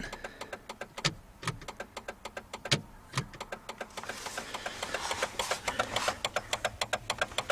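Jeep turn-signal flasher clicking fast and unevenly, several clicks a second, a buzzing tick from inside the cab. The signal is on for the side whose lamps don't light, and the owner suspects a faulty flasher or wiring.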